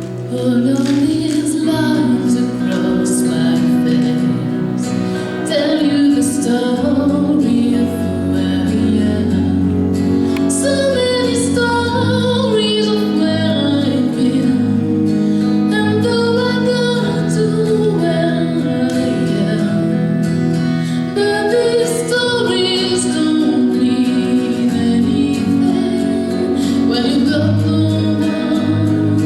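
A woman singing a song solo over guitar accompaniment.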